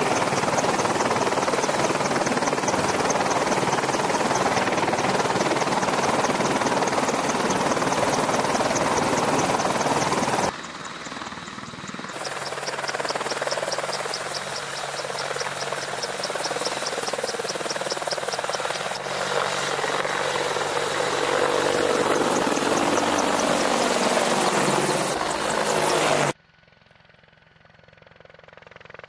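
AH-64D Apache helicopters' rotors and twin turboshaft engines, loud and steady at close range, changing abruptly about ten and twelve seconds in as the shots cut. Near the end it drops suddenly to a faint helicopter sound that grows steadily louder as one approaches.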